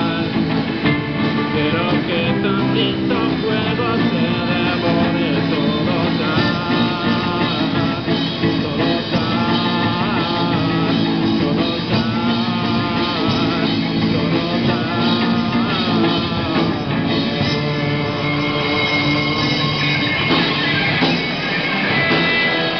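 Live rock band playing through amplifiers: electric guitars, bass guitar and drum kit, with a singer's vocal line.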